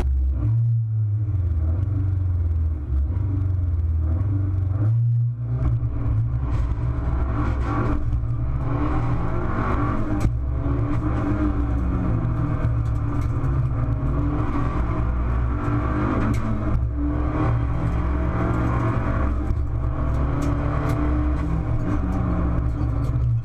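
Fiat 500 Abarth Assetto Corse's turbocharged 1.4-litre four-cylinder engine heard from inside the race car's cabin under hard acceleration, its pitch rising and falling again and again through gear changes and corners. A brief drop in engine sound comes about five seconds in.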